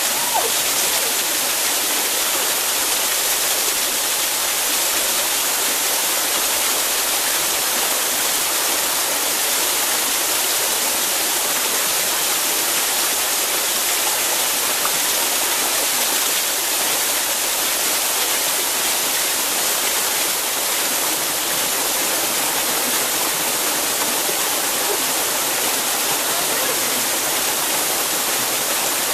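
Small woodland waterfall pouring over a rock face into a pool: a steady, even, hissing rush of falling water.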